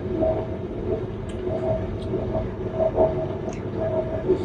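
Someone chewing food close to the microphone, with a few small clicks, over a steady low rumble.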